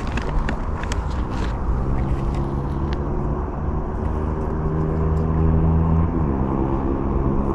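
An engine running steadily with a low drone, its pitch shifting slightly about six seconds in, with a few light clicks in the first second or so.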